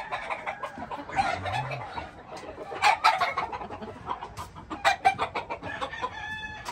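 Gamecocks in wire pens clucking, with a rooster crowing near the end and sharp steps on the dirt path between the pens.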